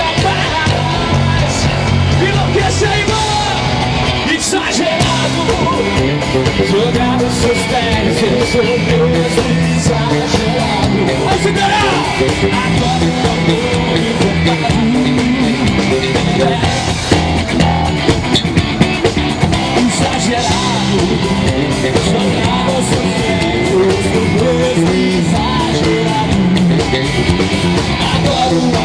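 Live rock band playing loud and steady: electric guitars, bass guitar and drums, with singing and yells over the top.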